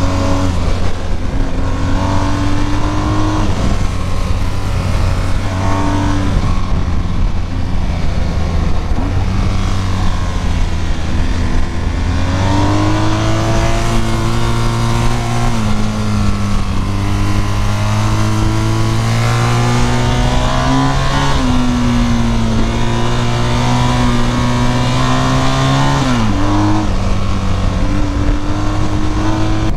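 BMW GS adventure motorcycle's engine running under way, its pitch rising and falling as the rider rolls on and off the throttle and shifts, dropping sharply about halfway and again near the end. Steady wind rush over the microphone runs under it.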